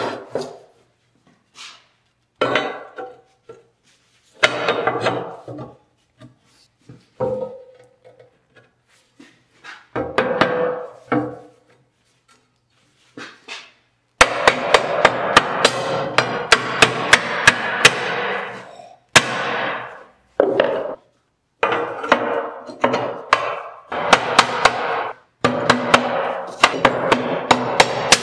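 Laser-cut steel plates knocking as they are handled and set on the table. About halfway through, a plastic-faced mallet starts tapping the plates' tabs into their slots, in runs of quick strikes two or three a second, the steel ringing after each blow.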